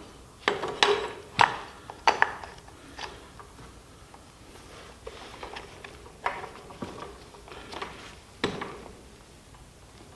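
Sharp clicks and knocks of garage door torsion spring hardware being handled: the winder and spring holder being fitted onto the spring end and steel tube, knocking against the tube and the wooden sawhorse. A cluster of clicks comes in the first few seconds, then a few more spaced out later.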